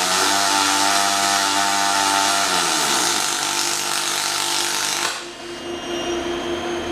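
Robotic welding arc crackling and hissing steadily through the final short stitch of a stitch weld, then cutting off suddenly about five seconds in, leaving a steady hum. A machine whine under the arc drops in pitch about halfway through.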